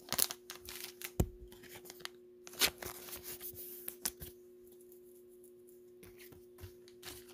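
Trading cards handled by hand: a scatter of light clicks and rustles as cards are slid and set down, busiest in the first half and sparse after, over a faint steady hum.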